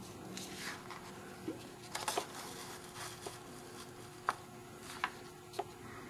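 Soft rustling and a few light taps and clicks of a hand handling and turning the pages of a paper brochure, over a faint steady hum.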